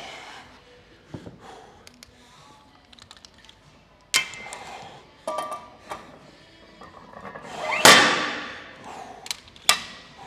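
Weight plates being loaded onto a barbell: several metal clanks, each with a short ringing tone. The loudest comes about eight seconds in, with two sharp clanks near the end.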